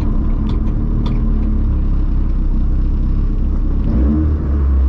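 Honda Civic EF hatchback heard from inside the cabin while driving: a steady deep engine and road rumble, with the engine note rising about four seconds in as it accelerates. The cabin is lined with Second Skin sound-deadening mat.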